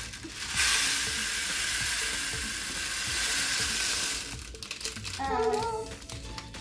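A stream of tiny dry Orbeez water beads poured out of their packet into a tray, making a steady hiss for about three and a half seconds that then stops.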